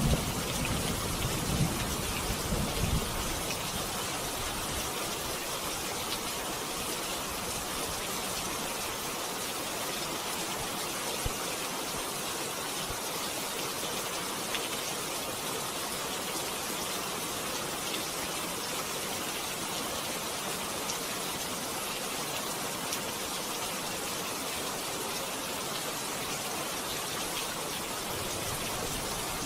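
Steady rain falling, an even hiss, with the low rumble of thunder dying away over the first few seconds.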